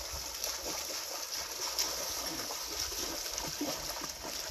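Shallow river water running over rocks, a steady hiss of flowing water with some light splashing.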